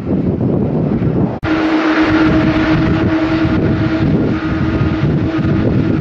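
Gusting wind buffeting the microphone over the rumble of jet airliner engines. About one and a half seconds in the sound drops out for an instant, then a steady engine hum with a held tone carries on under the wind noise.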